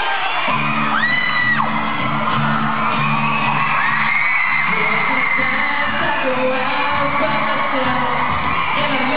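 Live acoustic guitar strumming begins about half a second in. A man sings into a microphone, and high-pitched screams from the crowd ride over the music.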